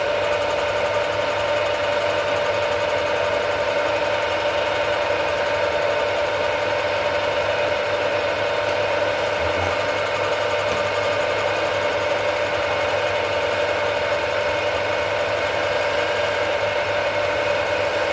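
An old lathe tool post grinder, an electric motor spinning a grinding wheel, running at speed with a steady whine. The wheel turns against the rotation of the shaft on the lathe.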